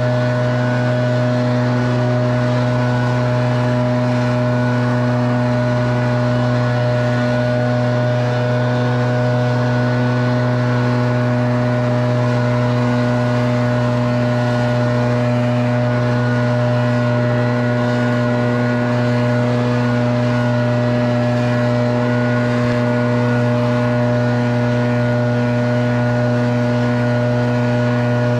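Echo two-stroke leaf blower running steadily at full throttle, blowing grass clippings off concrete, with an even engine drone and the hiss of rushing air that does not change pitch.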